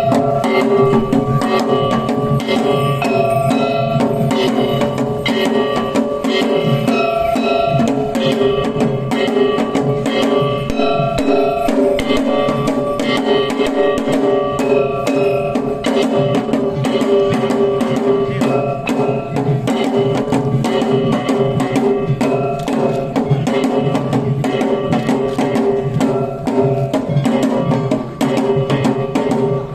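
Sanuki lion dance music: rapid, continuous drumming with sustained ringing tones over it.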